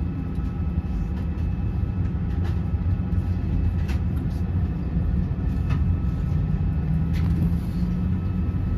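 Jet airliner cabin noise while taxiing: a steady low rumble with a faint engine whine above it, and a few light clicks or knocks scattered through.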